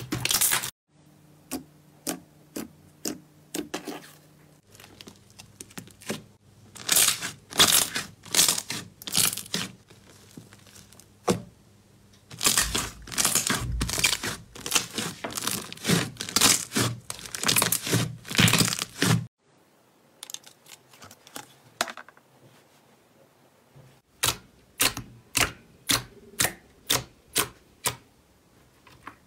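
Slime being squeezed, poked and pressed by hand, giving sharp crackling pops and clicks in several short clips that cut off suddenly one after another; near the end, a run of single pops about two a second.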